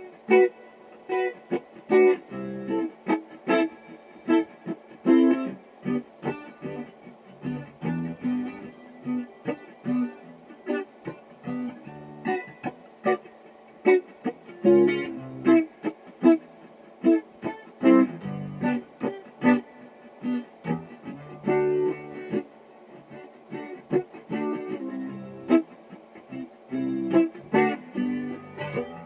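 A guitar played solo, plucked single notes and chords in a loose, jamming line with short gaps between phrases.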